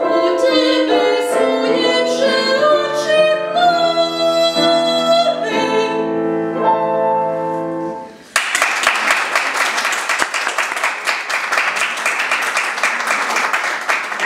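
A young woman's classical singing voice with piano accompaniment, finishing a song in its last phrases and closing notes. About eight seconds in, audience applause breaks out and continues.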